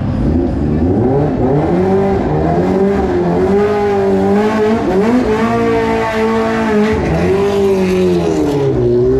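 Sport motorcycle engine revved hard and held at high revs, its pitch rising and falling over and over as the throttle is worked.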